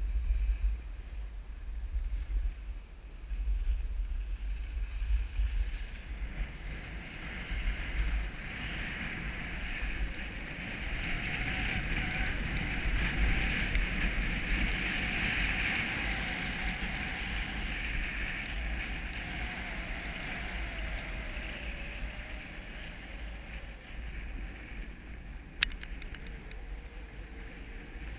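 Skis sliding and scraping over groomed snow, a steady hiss that swells louder in the middle, with wind buffeting the microphone. One sharp click near the end.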